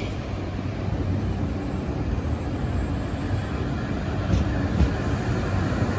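Yellow-striped Chūō-Sōbu Line electric commuter train rolling along the platform track, a steady low rail rumble with a few light clicks near the end.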